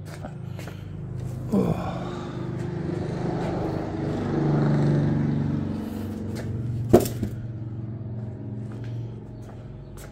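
A motor vehicle: a steady low hum with a swell of noise that builds and fades over a few seconds, and a single sharp knock about seven seconds in.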